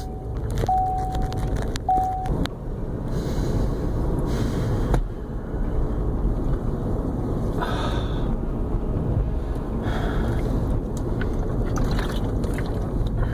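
Steady low rumble of a running motor vehicle. A steady beeping tone sounds a few times over the first two seconds.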